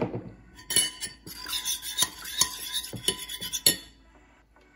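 Metal spoon stirring a liquid marinade in a dish, clinking and scraping against the sides, stopping a little before the four-second mark.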